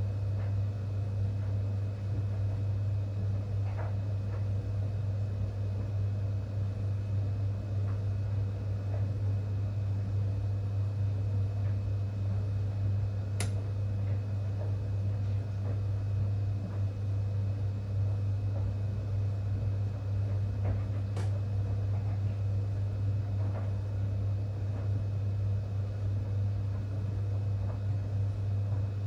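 Whirlpool 3RLSQ8033SWD top-loading washing machine running with a steady low hum, with two sharp clicks, one about halfway through and one about two-thirds of the way in.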